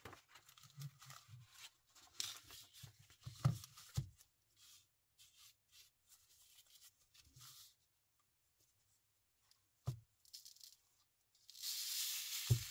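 Coarse sand rustling faintly under a gloved hand on a glue-coated resin tile, with a few soft taps. Near the end the loose sand pours off the tilted tile in a louder, steady hiss.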